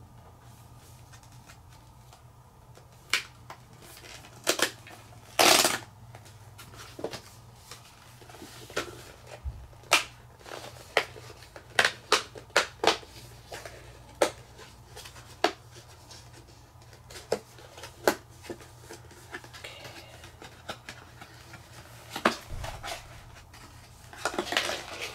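Plastic shrink wrap being picked at and peeled off a cardboard booster box: scattered, irregular sharp crinkles and snaps, with a longer stretch of crinkling near the end.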